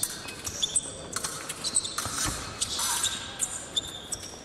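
Sabre fencing in play: a rapid, irregular run of sharp clicks and knocks from the fencers' footwork and blades on the piste, with short high squeaks and rings.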